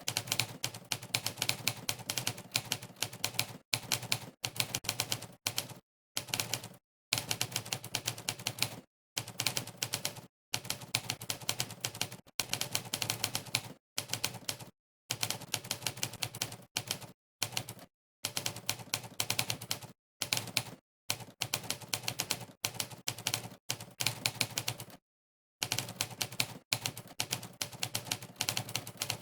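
Typewriter key-strike sound effect, one sample per keystroke, playing as fast rapid-fire clicking in long runs. The runs are broken by several short gaps of dead silence.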